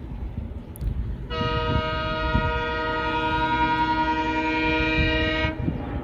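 ALCO WDG3A diesel locomotive chugging as it pulls away from a station under load. About a second in it sounds one long horn blast, a steady chord lasting about four seconds that is the loudest sound.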